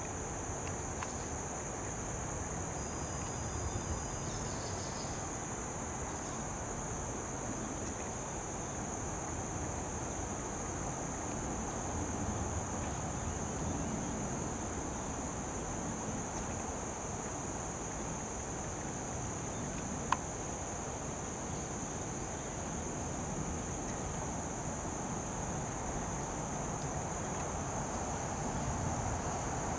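Steady, unbroken chorus of crickets with a wash of outdoor background noise beneath it; a single sharp click about twenty seconds in.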